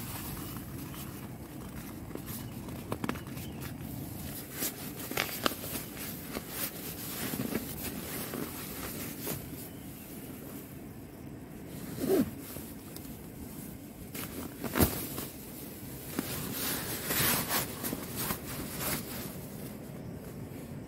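Nylon stuff sacks rustling and scraping as camping gear is packed by hand: a sleeping bag's drawcord sack is cinched and a roll-top dry bag is squeezed and rolled. Scattered sharp scrapes and clicks run through it, the loudest about twelve and fifteen seconds in.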